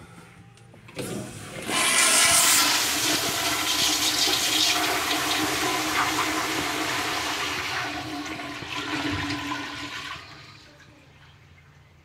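Toilet flushing: a loud rush of water starts about two seconds in, then slowly tapers off and dies away about ten seconds in.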